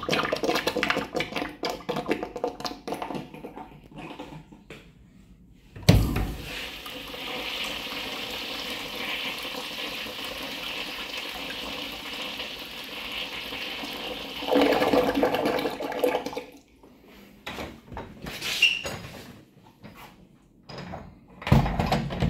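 Crane Cromwell urinal flushing: a sharp clunk about six seconds in, then steady rushing water for about eight seconds, swelling into a louder gurgle before it shuts off. Before the flush there are a few seconds of bursty clattering, and after it come scattered knocks and clicks, with a metal stall-door latch worked at the end.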